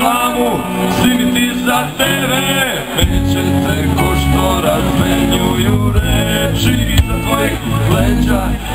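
Live band playing loudly, with bass guitar and guitar under a man singing.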